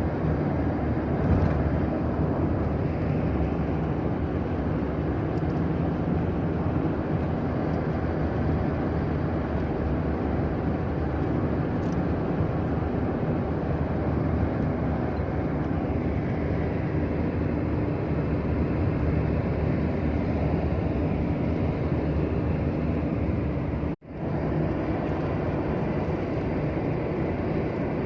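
Steady low rumble and noise of a moving vehicle, cut off for an instant about four seconds before the end.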